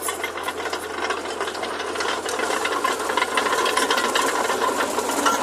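Mitsubishi BD2J bulldozer running with a dense, rapid metallic clatter of tracks and machinery, growing steadily louder.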